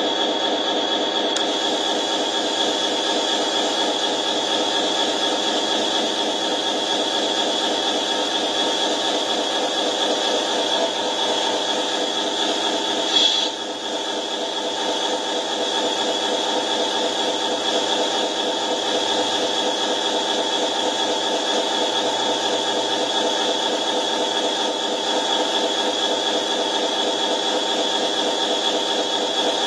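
Radio-controlled heavy-haul truck rig running steadily as its lowboy trailer's rear ramps are raised by remote: a rapidly pulsing mechanical hum with a constant high tone over it. A brief click comes about thirteen seconds in.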